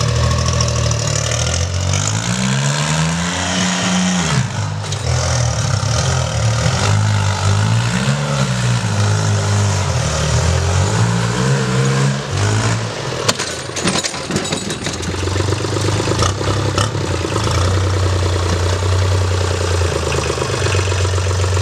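Sonalika DI 22 compact tractor's diesel engine revving up and down several times as the tractor rears its front wheels off the ground, with a few knocks about two thirds of the way in. It then runs at a steady speed.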